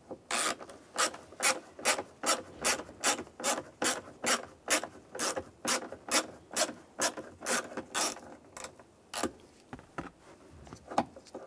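Hand ratchet clicking in a steady rhythm, a little over two clicks a second, as a T20 socket on an extension backs out a sun visor mounting screw; the clicking stops about nine seconds in.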